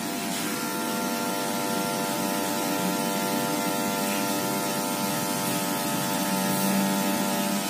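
Electric hair clippers running with a steady buzzing hum while cutting hair, getting slightly louder near the end.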